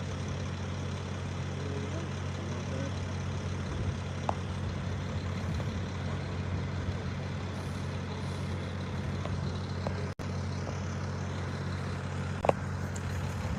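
Steady low hum of an idling engine, with a couple of faint clicks.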